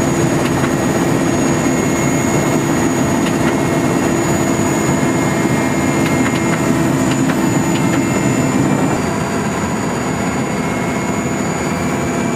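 Steady, loud engine noise with a constant hum, easing slightly about nine seconds in.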